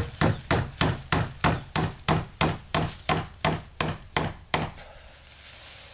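Hammer driving a nail into a wooden fence post and stake: about fifteen quick, even blows, roughly three a second, stopping near the end.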